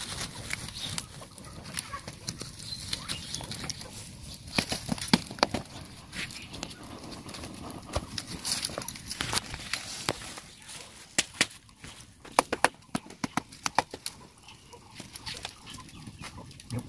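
Irregular sharp knocks, scrapes and rustling from handling a charred bamboo cooking tube: a stick pushing it through dry leaves and dirt, then green leaves being stuffed into its open end. A dense run of clicks comes a little past the middle.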